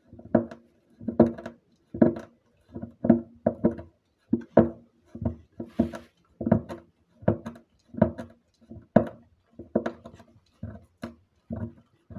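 A dog gnawing at the edge of a wooden door: a run of short bites and scrapes on the wood, about two a second and slightly irregular.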